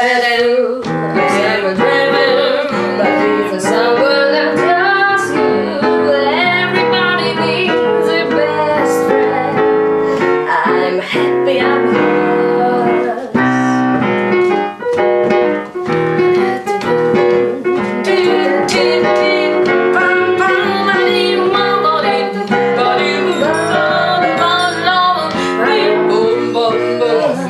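Piano accompaniment of a swing jazz tune with a woman singing over it, trying a vocal improvisation over the instrumental break.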